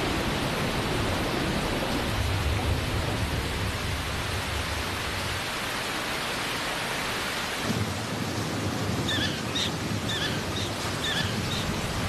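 Heavy rain falling steadily while thunder rumbles low in rolling waves. Near the end comes a short series of high, quick chirps.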